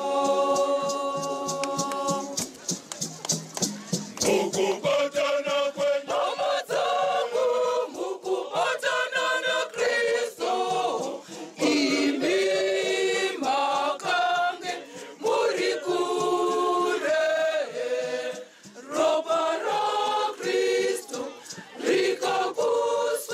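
A choir of women singing. It opens on a held note, then moves into short sung phrases.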